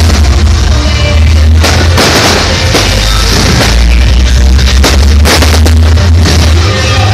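Loud party music with a heavy bass line, with several sharp fireworks bangs over it as shells burst.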